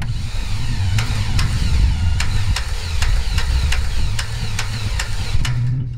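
Cessna 182's Continental O-470 six-cylinder engine being cranked by its electric starter: a steady low rumble with a sharp click about two and a half times a second from about a second in. This is a starter system the owner calls definitely wounded.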